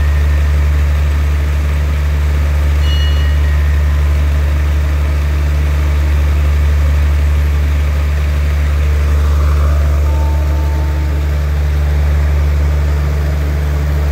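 Diesel power of a stopped passenger train idling, a steady low hum that holds without change.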